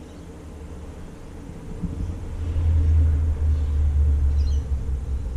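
A deep, low rumble that swells up about two seconds in and then holds steady.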